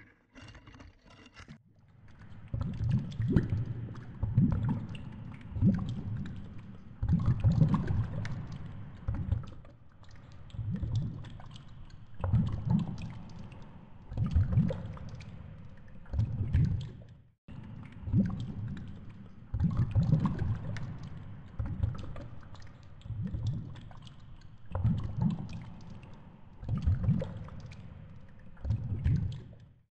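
Low, rushing water noise on an underwater action camera, swelling and fading in surges about every two seconds, with faint ticks between.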